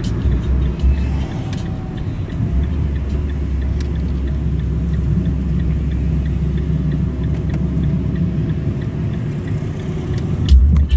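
Car on the move: a steady low rumble of engine and road noise, with louder low thumps near the end.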